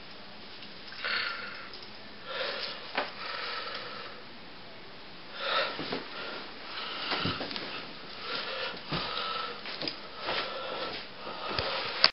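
A person's noisy breathing: irregular sniffs and wheezy breaths, a short one every second or two.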